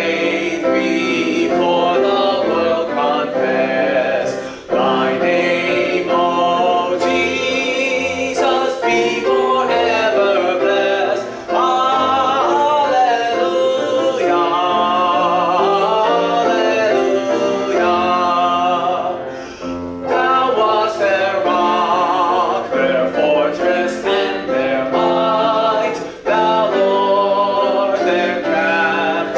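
A hymn sung by a woman's voice with vibrato, accompanied on grand piano, in phrases with short breaths between them.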